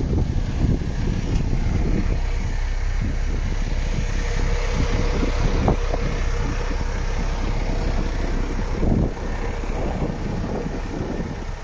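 MAN TGX 26.460 truck's six-cylinder diesel engine idling, with wind buffeting the microphone.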